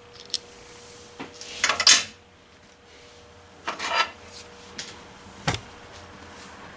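Small metal tools and parts being handled on a workbench: a few sharp clicks and two short scraping rattles, the louder about two seconds in and another about four seconds in.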